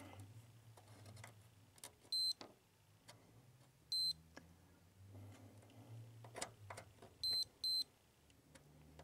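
Digital multimeter giving short high beeps as its probe tips touch points on a pinball driver board: one about two seconds in, another about four seconds in, and two in quick succession near the end. Faint taps of the probes come between them.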